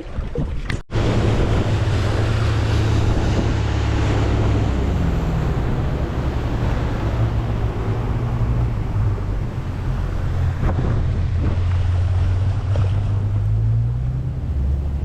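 Boat engine running steadily at speed, a low hum under wind buffeting the microphone and water rushing past. It starts abruptly about a second in.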